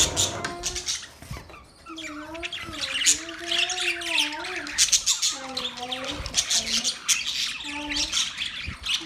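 Budgerigars chattering: a rapid stream of sharp, high chirps and squawks, with a lower, wavering warble that rises and falls through the middle.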